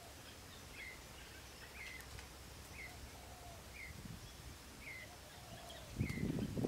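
A bird repeats a short, falling chirp about once a second over quiet outdoor ambience, with a lower call now and then. Near the end a louder, low rustling noise sets in.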